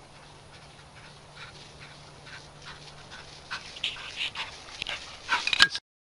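A black retriever running in through tall grass with a bumper in its mouth: quick, noisy strokes of its breathing and strides grow louder as it comes close, then cut off suddenly near the end.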